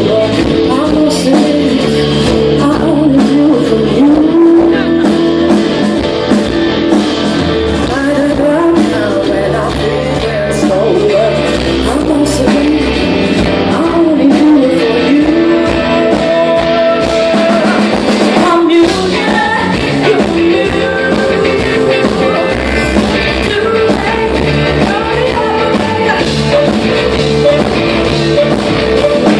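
Live concert performance: a woman singing a melody over strummed guitar and a full band, loud and continuous.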